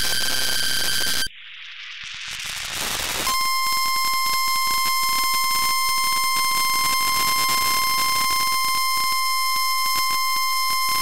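Over NOAA Weather Radio, the last burst of EAS header data tones, a harsh digital screech, ends about a second in. Radio static hiss then swells for about two seconds, and the steady 1050 Hz NWS attention tone begins, a loud single-pitched electronic tone.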